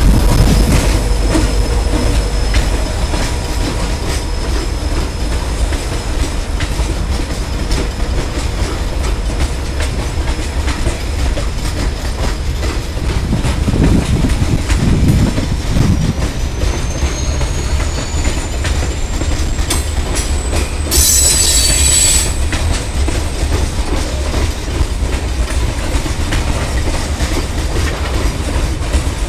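Freight train gondola cars rolling past close by: a steady heavy rumble of steel wheels on rail with clickety-clack over the joints. Thin high wheel-squeal tones run above it, one gliding upward past the middle, and there is a brief burst of high-pitched screech about three-quarters of the way through.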